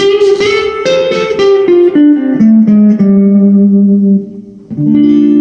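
Electric guitar played through an amp: a quick run of picked notes, then held notes that die away, and a chord struck near the end and left ringing.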